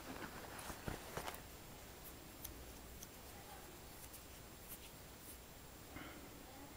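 Faint handling sounds of a small fixed-blade knife turned over in the hand: a few light clicks about a second in and another near the end, over a low steady hiss.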